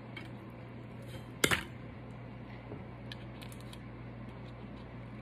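Wire cutters snapping through a wire coat hanger: one sharp click about a second and a half in, then a few faint clicks near three seconds.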